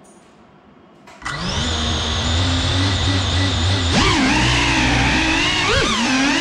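GEPRC CineLog35 cinewhoop drone's brushless motors and propellers spooling up suddenly about a second in, then whining steadily. From about four seconds in the pitch swings up and down as throttle changes and the drone lifts off the floor again after a crash.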